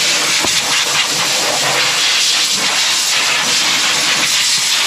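Air blower blowing a steady, loud hiss of air.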